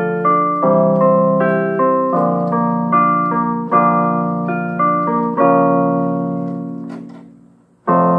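Electronic keyboard with a piano sound playing slow chords under a simple melody. A held chord fades away almost to nothing, then a new chord is struck near the end.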